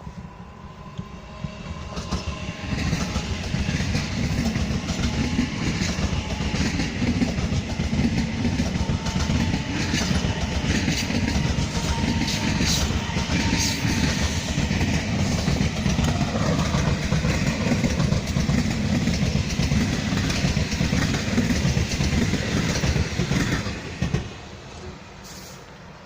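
A train passing on the tracks, its wheels clattering rhythmically over the rail joints. The sound builds over the first two seconds and drops away about 24 seconds in as the train clears.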